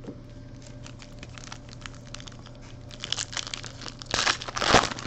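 A foil trading-card pack being torn open and crinkled by hand. Light ticks come first, then a burst of crackling from about three seconds in, loudest near the end.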